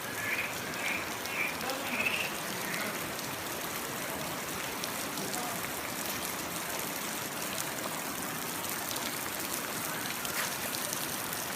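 Waterfall: a steady rush of falling and splashing water, even and unbroken. In the first few seconds a few short voice-like sounds rise faintly above it.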